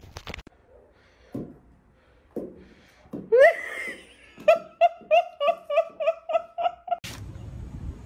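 A person laughing hard: a high rising cry about three seconds in, then a rapid run of high-pitched 'ha-ha' bursts, about five a second. It breaks off at a cut, and a steady rushing noise takes over near the end.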